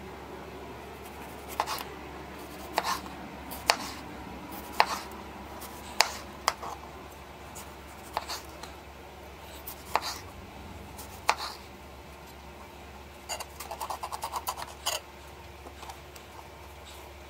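Kitchen knife slicing a tomato on a cutting board, the blade knocking on the board with each cut about once a second, then a quicker run of light taps near the end.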